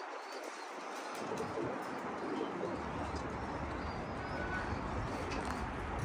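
Domestic pigeons cooing, with high chirps here and there. A low rumble comes in about a second in and runs on under them.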